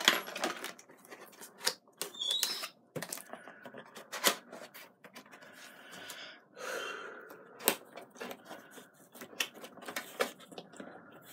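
A cardboard gift box and its packaging being handled and opened: irregular sharp clicks and taps, with short bursts of scraping and rustling.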